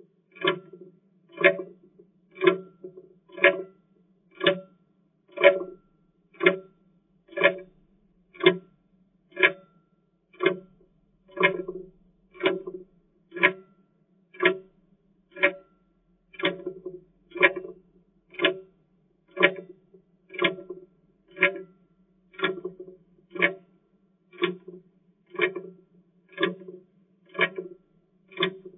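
Clock tick-tock, one tick each second, steady and even, marking off the seconds of a countdown.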